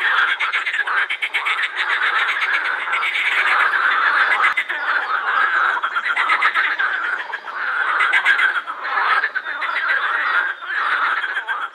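A chorus of many edible frogs croaking, their overlapping calls made of quick pulses and keeping on without a break.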